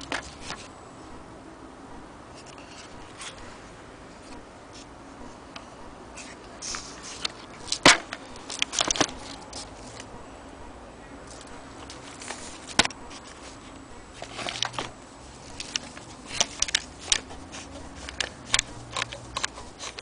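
Kodak Junior folding camera handled up close: scattered sharp clicks and knocks from its parts, the loudest about eight seconds in, with a run of quicker clicks over the last few seconds.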